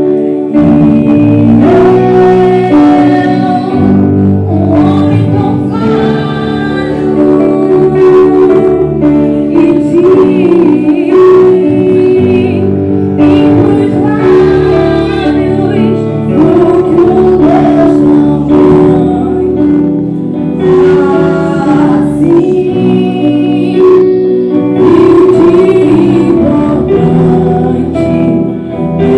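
Church worship team singing a gospel song, several voices together over held accompaniment chords.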